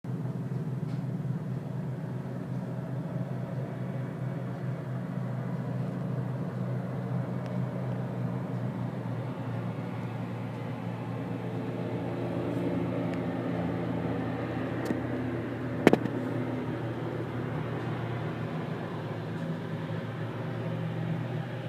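Steady low rumble of distant traffic, with a pitched engine drone growing louder in the middle and one sharp click about two-thirds of the way through.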